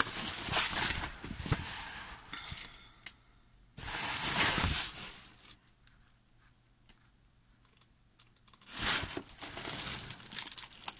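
Plastic protective film on a diamond painting canvas crinkling as the canvas is handled and bent. It comes in three bouts: one at the start lasting about three seconds, a shorter one around four to five seconds in, and another from about nine seconds in.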